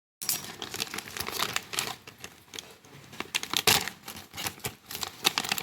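Plastic packaging of a new brake master-cylinder kit crinkling and crackling as it is handled and opened, with dense, irregular sharp clicks.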